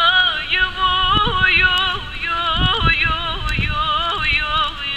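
Turkish folk song: a singer holds long, wavering, ornamented notes with no clear words, over accompanying music.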